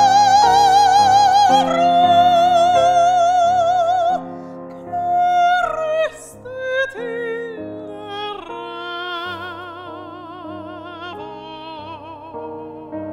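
Mezzo-soprano singing with wide vibrato over grand piano accompaniment: a long, loud held note that ends about four seconds in, then shorter, quieter phrases while the piano carries on, fading toward the end.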